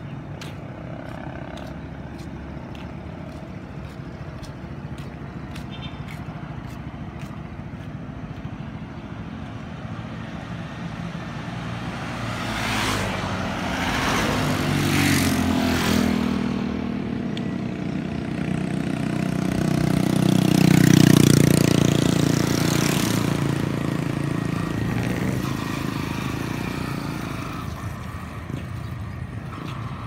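Motor vehicles driving past on a street. The traffic builds up from about twelve seconds in, and a louder engine passes close by about two-thirds of the way through, then fades away.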